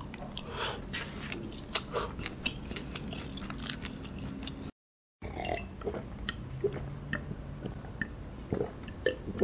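Close-miked chewing of a mouthful of instant noodles, with small wet mouth clicks. The sound cuts out briefly just before the halfway mark. Near the end come a few swallowing sounds from drinking out of a glass jar.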